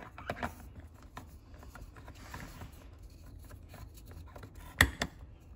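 Plastic clicks and light rattling as an extension handle is pushed onto and twisted into the nozzle of a Bissell Steam Shot handheld steam cleaner, with a sharp louder click near the end as it seats.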